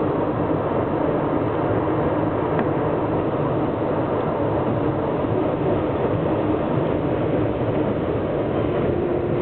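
An R62A subway car on the elevated 7 line running at speed, heard from inside the car: steady train running noise with no distinct events.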